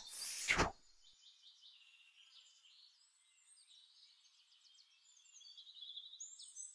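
End-screen animation sound effects: a short burst of rushing noise in the first second, then faint, high-pitched chirping and rapid ticking that grows a little louder near the end.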